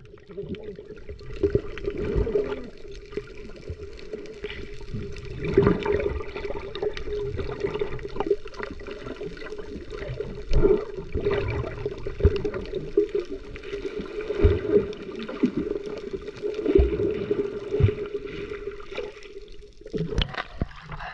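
Water gurgling and sloshing, with irregular knocks and a steady hum underneath.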